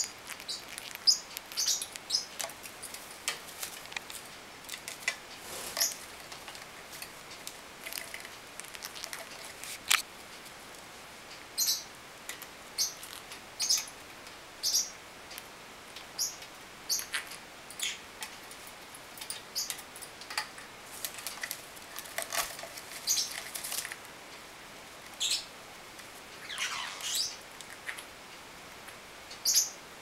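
Small pet parrots chirping: short, high, squeaky chirps scattered throughout, with one longer call sliding downward near the end and a single sharp click about ten seconds in.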